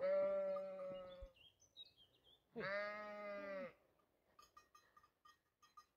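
Sheep bleating twice: a call lasting over a second, then a shorter second call after a pause of about a second. Faint, quick, repeated ticking follows.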